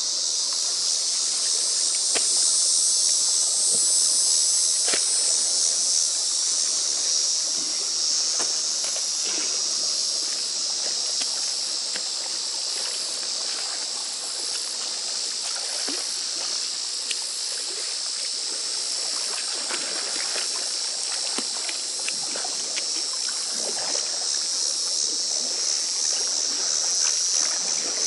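Steady high-pitched chorus of insects, with scattered small splashes and trickling of pond water as algae is pulled out by hand.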